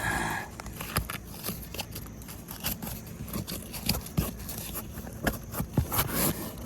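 Asphalt roof shingles and felt underlayment being lifted and handled by hand: scraping and crackling with irregular clicks and taps.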